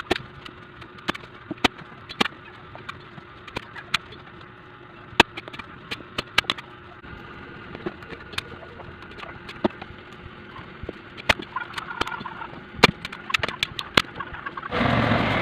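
A string of irregular, sharp clicks and knocks over a low, steady background.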